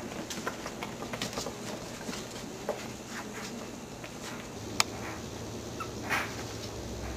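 Eight-week-old Maltese puppies moving about and making small sounds, among scattered light clicks and scuffles, with one sharp click a little past the middle and a brief burst near the end.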